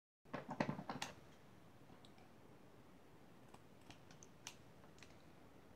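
Scissors snipping small holes in a fleece blanket: a quick flurry of snips and fabric handling in the first second, then a few faint, scattered clicks of the blades.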